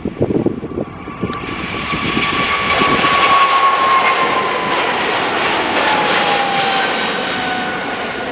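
Boeing 777-300ER's GE90 turbofan jet engines at takeoff power: the jet noise builds about a second in, peaks midway, and a whine falls steadily in pitch as the airliner goes by. Wind gusts on the microphone at the start.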